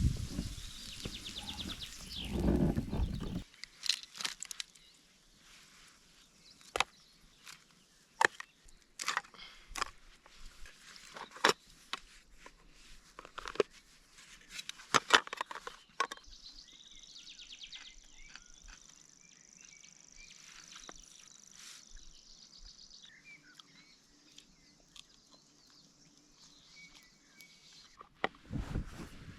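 A series of sharp, separate knocks at irregular gaps, about a dozen in all, after a loud low rumble at the start; a faint steady high-pitched tone follows.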